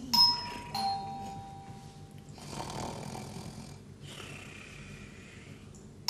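A two-tone ding-dong doorbell rings once, a higher note then a lower one that rings on, followed by a man snoring in two long, noisy breaths.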